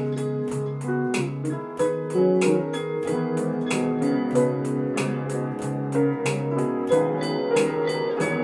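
Music track: keyboard chords held over a steady percussion beat.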